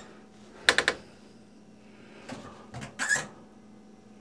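A short rattle about two-thirds of a second in, then a few faint knocks and a brief squeak near three seconds in, from hands working on a kitchen sink's disconnected under-cabinet plumbing.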